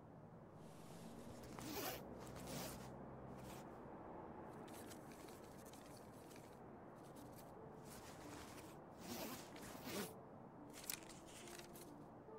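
Sheets of paper being handled and turned, a series of short rustles as the pages of a document are leafed through.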